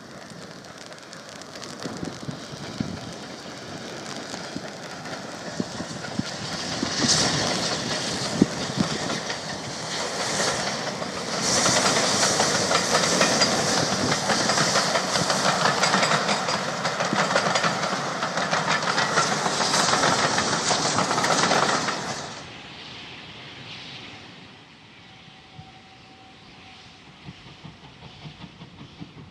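Hudswell Clarke 0-6-0ST saddle tank steam locomotive working with a train of coaches, its exhaust and wheels clacking over rail joints building to a loud, steady passing noise. Near the end it cuts abruptly to a much quieter, distant train.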